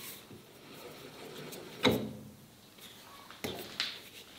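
New tool post nut being spun down the threaded stud of a Phase II quick-change tool post and tightened with its lever handle: light metal scraping and clicks, with a sharp metallic knock about two seconds in and two more near the end.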